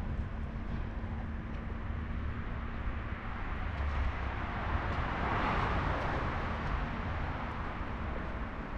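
City street traffic: a steady low rumble, with a passing vehicle whose noise swells to a peak a little past the middle and then fades.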